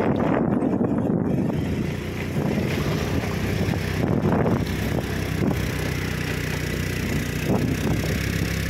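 A vehicle travelling along a road, its engine running steadily under road and wind noise.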